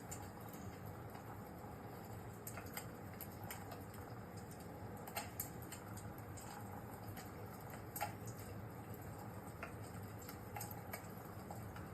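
Wood fire crackling: irregular small pops and snaps over a steady low hiss, with a few louder pops about five and eight seconds in.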